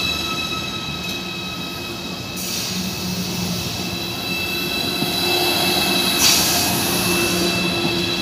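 Deutsche Bahn ICE electric train rolling slowly past along the platform: a steady whine of several tones over the wheel rumble, with hiss rising about two seconds in and a short burst of hiss around six seconds.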